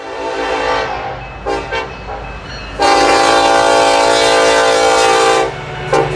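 Diesel freight locomotive's air horn: two short blasts, then one long blast of about three seconds and a brief toot near the end, over the low rumble of the passing train.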